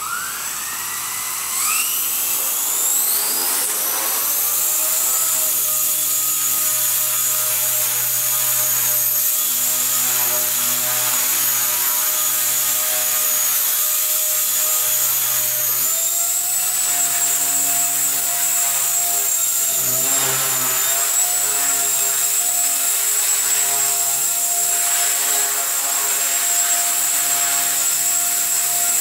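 Blade 130 X micro flybarless RC helicopter's electric motors and rotor spooling up with a rising whine over the first few seconds, then holding a steady high-pitched whine in flight. The pitch shifts around the middle and dips briefly a few seconds later as the throttle changes.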